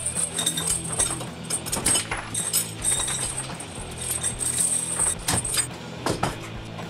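Steel link chain rattling and clinking in irregular bursts as it is pulled and laid across steel angle-iron cleats, over background music.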